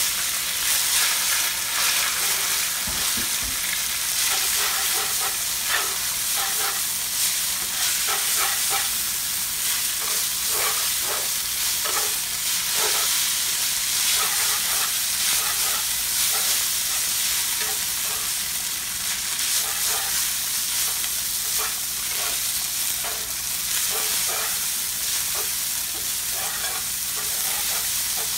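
Rice vermicelli frying in hot oil with garlic in a nonstick frying pan, sizzling steadily while being stirred and tossed with chopsticks. Frequent short, irregular scrapes come from the chopsticks turning the noodles in the pan.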